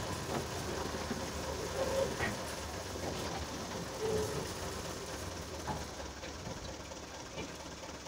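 Tractor diesel engine running steadily under load as it drives the hydraulic tipping of a loaded sand trailer, easing slightly in level toward the end. A couple of brief higher-pitched calls stand out about two and four seconds in.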